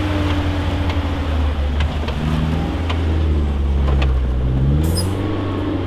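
Suzuki SJ-series off-roader's engine running at low revs as it crawls over rocks, its pitch wavering slightly with the throttle. A few sharp clicks and knocks sound over it.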